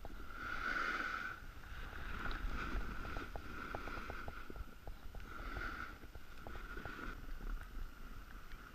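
Snowboard edges scraping and sliding over packed snow through a run of turns, swelling about five times as each turn digs in, over a low rumble of wind on the microphone.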